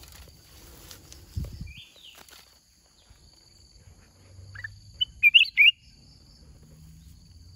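Black-crested bulbul calling: a quick run of loud whistled notes about five seconds in, led by a fainter single note. A dull thump comes about a second and a half in, and a faint steady high hum runs underneath.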